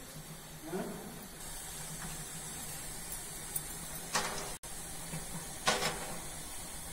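Paper-capped glassware being set down in the steel basket of a vertical autoclave: two short clinks about a second and a half apart, over a steady high hiss.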